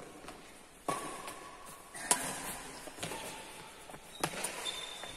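Badminton shuttlecock struck back and forth by rackets in a doubles rally: about five sharp hits, roughly a second apart, with a brief high squeak near the end.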